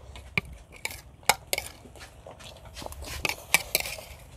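A spoon and other eating utensils clinking and scraping against a bowl and plates: a scattered series of sharp clicks, the loudest about a second in and again about three and a half seconds in.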